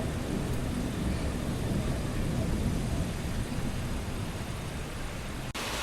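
Low rumble of thunder dying away over steady rain and city traffic noise. About five and a half seconds in, the sound cuts off for an instant and comes back as a brighter, hissier wash of rain.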